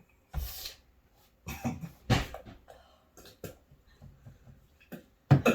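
A person coughing and gasping in several short, breathy bursts, with the sharpest cough near the end: a reaction to the burn of extremely hot chicken.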